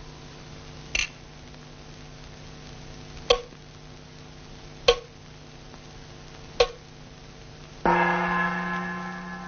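Four sharp woodblock knocks, each with a short ringing tone, spaced about two seconds apart. Near the end a gong is struck once and rings out slowly, over a steady low hum.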